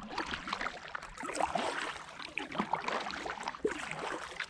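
Kayak paddle dipping and splashing in river water, with water dripping and gurgling around the boat in a steady, irregular patter of small splashes.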